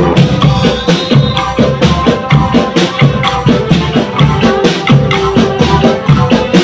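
Marching drum band music: drums and hand percussion beating a steady, fast rhythm under a held melody.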